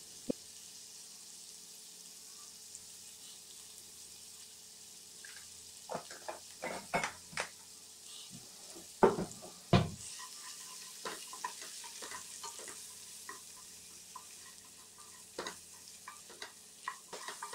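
Sliced vegetables frying gently in oil in a kadai with a faint steady sizzle. From about six seconds in, a wooden spatula stirring them, with scattered scrapes and knocks against the pan, loudest about nine to ten seconds in.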